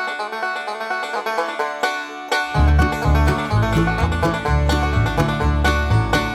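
Background music: an up-tempo plucked-string tune led by banjo. A bass line comes in about two and a half seconds in.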